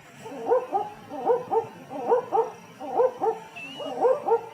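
Recorded owl call: short rising hoots, repeated rapidly in groups of two or three.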